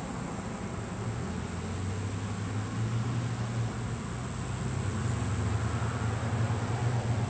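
Steady low machine hum over an even hiss, the hum growing stronger about a second in.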